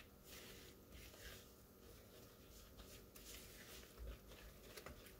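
Faint, irregular scraping strokes of a whisk stirring flour, sugar and milk batter in a plastic mixing bowl.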